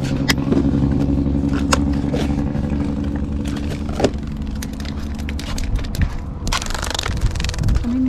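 A motor engine running steadily nearby, its low hum fading over the first few seconds, with scattered sharp clicks and a short burst of rustling near the end.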